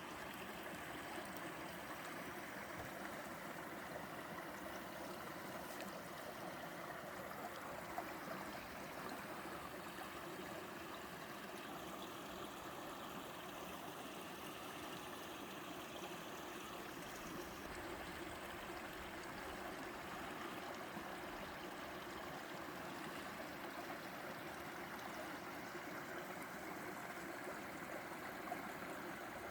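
Mountain stream running over shallow rapids: a steady, even rush and gurgle of water.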